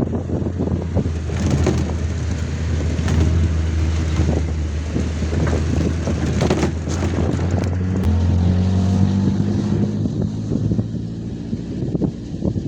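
A vehicle engine running steadily with a low hum, with wind on the microphone and scattered knocks; the engine note changes about eight seconds in.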